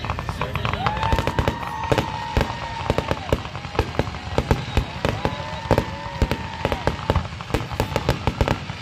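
Fireworks firing in rapid succession: a dense, irregular string of sharp pops and bangs, several a second.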